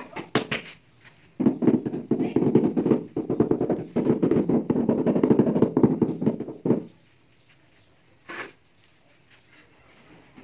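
Rubber mallet rapidly tapping a 30x30 cm ceramic floor tile to bed it into fresh mortar: a fast run of dull taps lasting about five seconds, starting about a second and a half in. A few sharp clicks come just before it, and one short sharp sound comes about eight seconds in.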